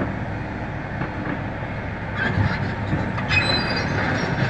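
Komatsu PC300 excavator's diesel engine running with its steel tracks clanking as it shuffles forward and back on the lowboy trailer's steel deck. A high metallic squeal of the tracks starts about three seconds in.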